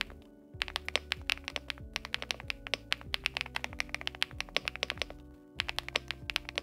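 Fast typing on a GravaStar Mercury K1 Lite mechanical keyboard with BSUN×GS Crystal White linear switches and PBT keycaps: quick runs of crisp keystrokes, pausing briefly about half a second in and again near the end. Background music with a steady bass line plays underneath.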